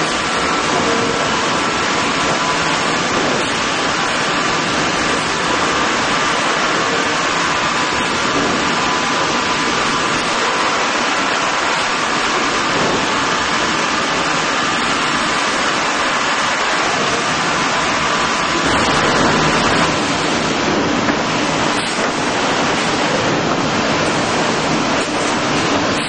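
Steady, loud noise of a running sawmill line: conveyor chains, rolls and saws running together, with a faint steady whine through most of it.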